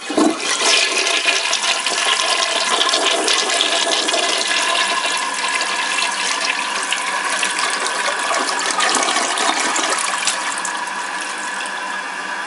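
Toilet flushing: a sudden loud rush and swirl of water draining from the bowl. About ten seconds in it eases to a quieter steady hiss as the bowl refills.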